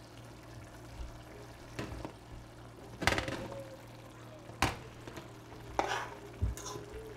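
A metal fork clinking and scraping against a metal cooking pot as it stirs through thick curry chicken. There are about five sharp clinks, a few with a short ring, over a low steady hum.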